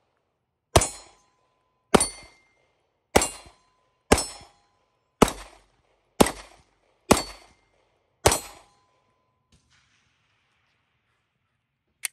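Eight 9mm pistol shots from a Glock 19X, fired at a steady pace about a second apart: the first rounds from the cold gun. A short metallic ring follows several shots, the sound of hits on steel targets.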